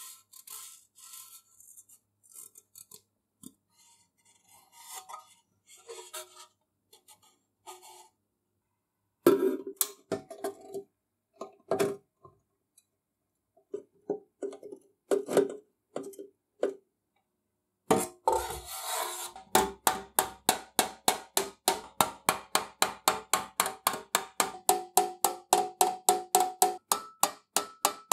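Sheet-metal kitchen scale housing being worked with small metal hand tools to straighten dents: scattered light taps and scrapes, then from about eighteen seconds in a fast even run of tool strikes, about four a second, each ringing briefly.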